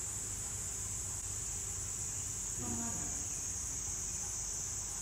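A steady, high-pitched insect drone.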